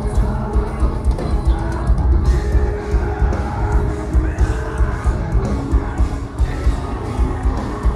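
Progressive metal band playing live: heavy distorted guitars and bass with a pounding drum kit, recorded from the crowd.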